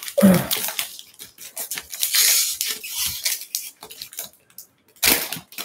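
Foil wrapper of a baseball card pack crinkling and crackling in the hands as it is torn open, in irregular bursts with a louder crackle near the end.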